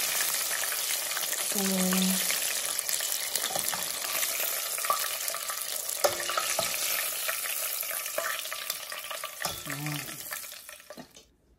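Chicken wings deep-frying in hot oil: a steady sizzle and crackle with a few light clicks, fading out near the end.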